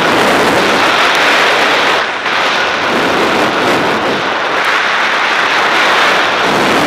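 Steady rushing hiss of riding fast down a groomed snow slope: edges sliding and scraping over the packed snow, with air rushing past the camera's microphone. There is a brief dip about two seconds in.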